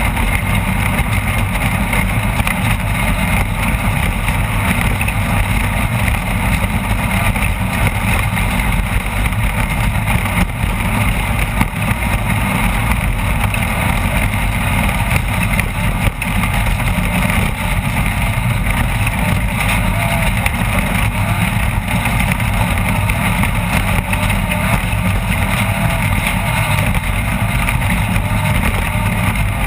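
Off-road race vehicle's engine running steadily, with a constant rush of driving noise.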